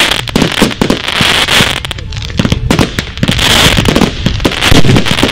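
Firework cakes going off in a rapid, continuous barrage of bangs with crackle throughout.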